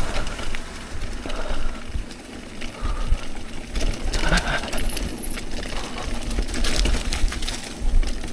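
Mountain bike clattering and rattling over a rough dirt trail on a descent, with irregular knocks and clicks over a low rumble and a brief high squeak about five seconds in.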